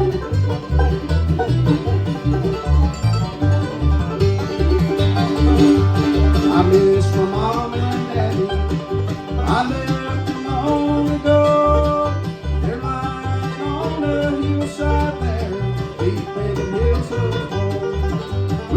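Instrumental break of a country song: plucked-string lead lines with sliding notes over a steady low bass beat.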